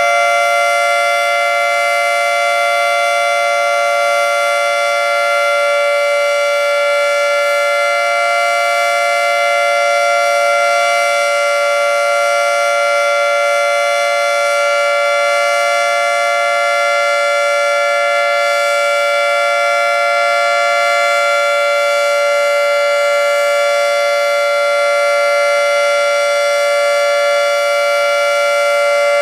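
Federal Signal 2T22A dual-tone outdoor warning siren sounding a steady alert during its monthly test: a loud two-note chord held at a constant pitch, with no rise or fall.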